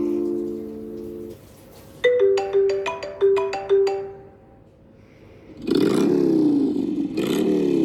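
iPad ringtones playing one after another. A held electronic chord fades out, then comes a quick run of plucked notes, and after a short pause two long honking tones with a wavering, bending pitch.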